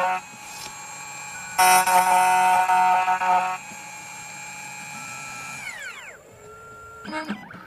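CNC key cutting machine's cutter milling a key blank: a loud whine made of many steady tones that stops at the very start, then comes back for about two seconds. After that the spindle runs on more quietly and winds down with a falling pitch about six seconds in, followed by a few short mechanical clicks near the end.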